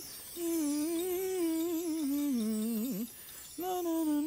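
Someone humming a slow tune in long held notes that waver and slide down, with a short break about three seconds in. A mark tree (bar chimes) shimmers softly near the start.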